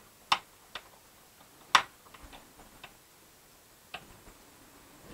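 Scattered sharp metallic clicks and ticks of a small screwdriver working a screw on the laser engraver's aluminium frame while the drive belt is tightened down. They are irregular, about half a dozen, with the loudest about a third of a second in and again just under two seconds in.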